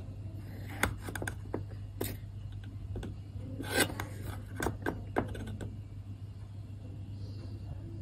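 Metal spoon scraping and clinking against the rim of a tin can and a stainless steel bowl while scooping powder, a scatter of light clicks and scrapes, the loudest about four seconds in, over a steady low hum.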